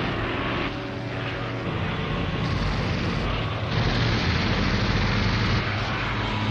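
Steady drone of a propeller aircraft engine: a low hum under a dense rushing noise, dipping slightly about a second in and swelling again a few seconds later.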